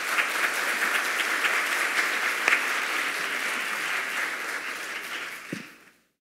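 Audience applauding, a steady spread of many hands clapping that fades away near the end.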